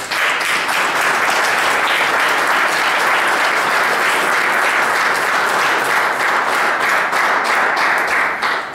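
Audience applauding, a dense patter of many hands that dies away near the end.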